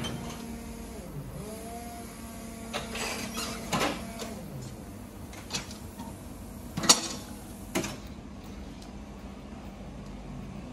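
Electric stand-up reach truck on the move: a steady electric motor hum with a whine that glides up and down about a second in, and several sharp clunks, the loudest about seven seconds in.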